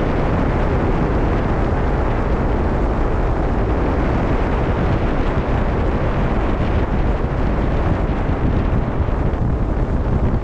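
Wind blowing over the microphone on the deck of a cruise ship at sea: a steady, deep rush that goes on without a break.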